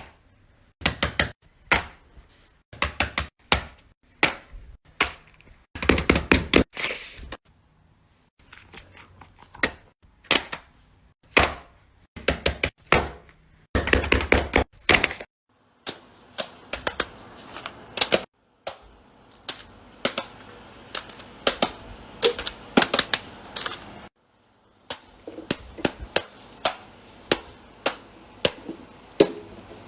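Fidget toys being clicked and tapped by hand: a long irregular run of sharp clicks and knocks, some bunched into quick rattling clusters, with short pauses between.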